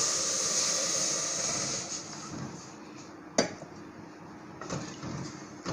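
Water poured from a steel pan into an aluminium pot of ghee-toasted cracked wheat and barley, a steady splashing pour that stops about two seconds in. A sharp knock follows a little past the middle, then a few lighter taps.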